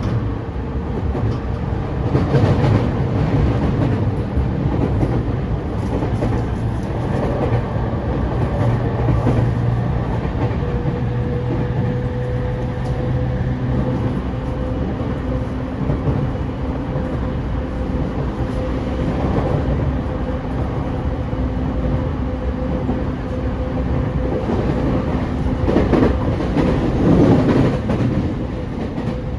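E231 series 500-subseries electric commuter train running on the line: steady wheel-on-rail rumble with the hum of its traction motors and clacks over rail joints. It grows louder about two seconds in and again near the end.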